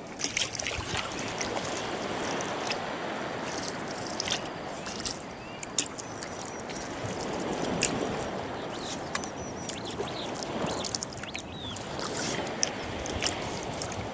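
Oars of a rowboat dipping and pulling through the water, sloshing and splashing in slow swells, with birds chirping over it and a few sharp knocks.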